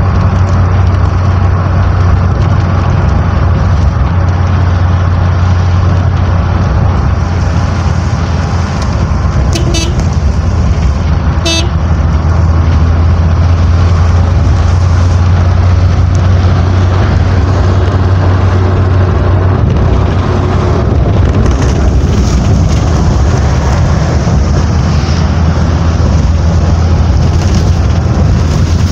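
Steady low rumble of a road vehicle on the move, with two short horn toots about ten and eleven and a half seconds in.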